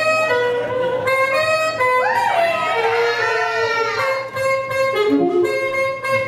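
Live swing jazz band playing, with a saxophone carrying the melody in held notes and some bending, sliding notes about two seconds in.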